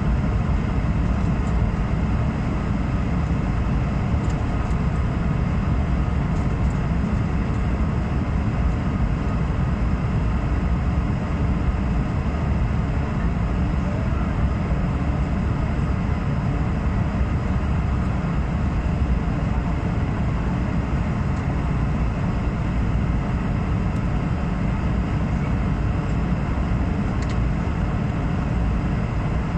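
Steady cabin noise of a jet airliner on descent, heard from inside the cabin at a window seat: an even, low rumble of engines and rushing air that does not change.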